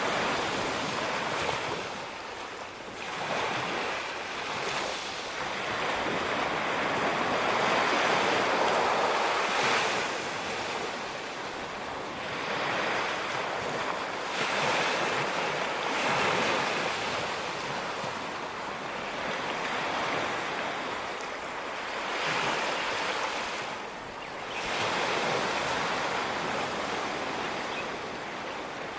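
Ocean waves breaking and washing up on a beach, the surf swelling and falling away every few seconds.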